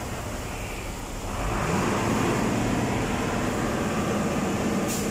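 Mitsubishi Fuso Fighter truck's diesel engine running, heard from inside the cab. About a second and a half in, it picks up and gets louder, and stays that way.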